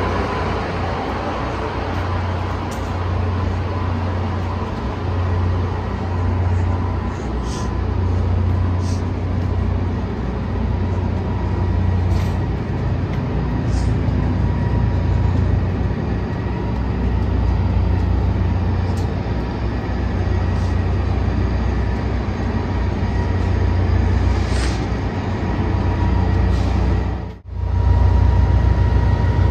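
EMD F40PH-2 diesel passenger locomotives standing at the platform with their engines running, a steady low rumble with a faint constant whine. The sound drops out for a moment near the end.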